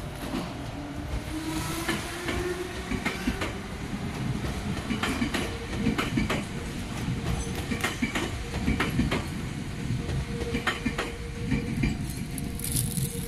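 Red Meitetsu electric train running past on the tracks, its wheels clicking over rail joints. A low hum rises in pitch about a second in.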